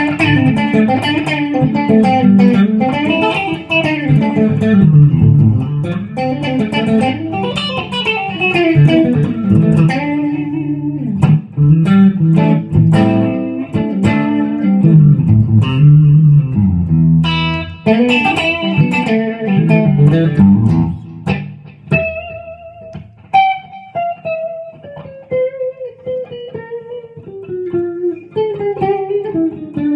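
Epiphone Les Paul Custom electric guitar with Gibson humbucking pickups, both tone controls all the way up, being played: low riffs and chords for about twenty seconds, then a quieter single-note line stepping down in pitch.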